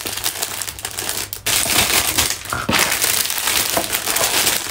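Packaging crinkling and crackling as it is handled and crumpled by hand, a run of close, irregular crackles.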